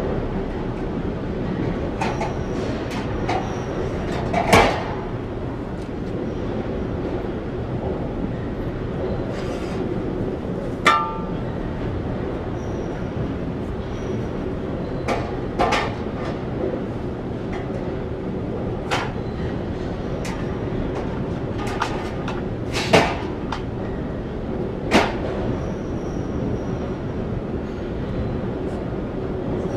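Steady low mechanical rumble, with a sharp metallic clank or knock every few seconds; the loudest knocks come about four and a half seconds in and about two-thirds of the way through.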